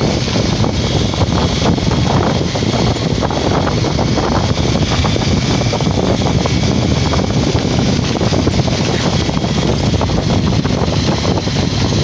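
Steady wind rush buffeting the microphone on a moving motorcycle, mixed with the motorcycle running at riding speed.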